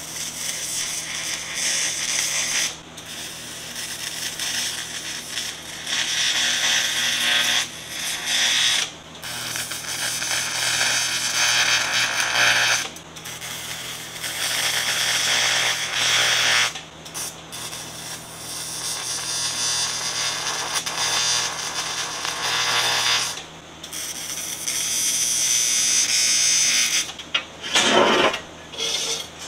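AC TIG welding arc on 3/16-inch aluminum diamond plate, buzzing and hissing, struck again and again in runs of a few seconds with short breaks as tacks are laid. It comes from a transformer welder running AC with a pure tungsten electrode, pure argon and 4043 filler rod. A few knocks of metal being handled near the end.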